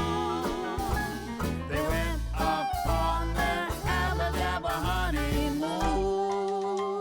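Swing-style music playing, with a bouncy beat and sliding notes, settling into a long held chord near the end.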